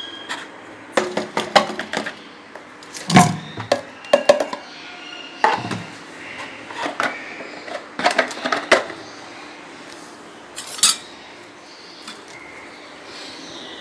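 Irregular clusters of sharp clicks, knocks and clinks from hard objects being handled, such as a bowl and a utensil, over a low steady background.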